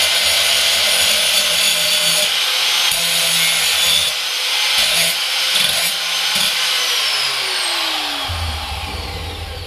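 Power grinder abrading a steel bolt clean, a steady harsh hiss of metal being scoured. About seven seconds in it is switched off and winds down, its pitch falling.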